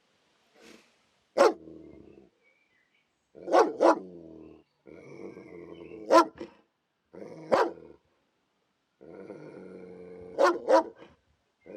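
Police dog barking aggressively, sharp single barks and quick pairs of barks, each trailing into about a second of growling, with short silent breaks between.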